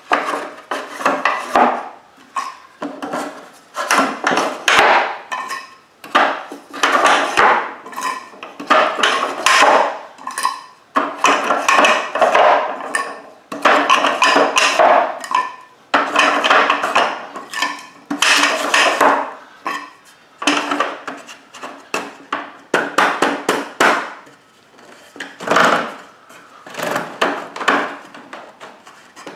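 Fiberglass fireworks mortar tubes being handled and set into a wooden rack. The tubes clatter and knock against each other and the wood in repeated bursts of hollow, ringing knocks, one cluster every second or two.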